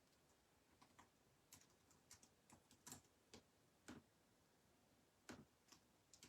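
Faint, irregular sharp clicks and taps, about a dozen over several seconds, against near-silent room tone.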